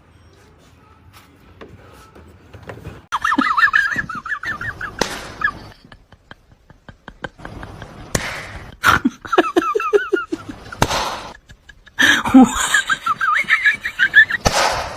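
High-pitched laughter in three bouts, starting about three, eight and twelve seconds in, with a few sharp knocks between them.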